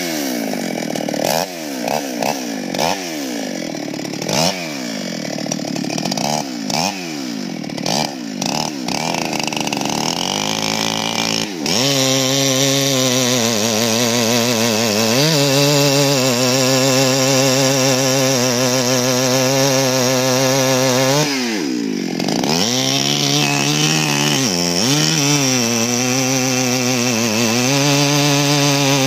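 Two-stroke chainsaw revved in repeated quick blips of the throttle, then from about twelve seconds in held at full throttle while cutting through a large pine trunk in a felling back cut. Under load the engine note sags briefly and recovers twice in the later part.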